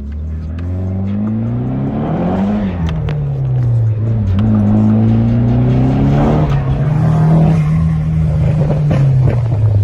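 Nissan SR20DET turbocharged four-cylinder engine revving under load. Its note rises, falls back about two and a half seconds in, climbs again, then holds steady.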